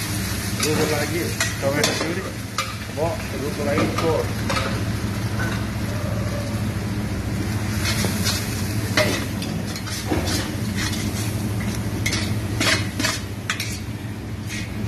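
A spoon stirring and scraping browned chicken bones and vegetables in a large steel stockpot as they sizzle over the heat, with frequent clicks and scrapes of metal on the pot. A steady low hum runs underneath.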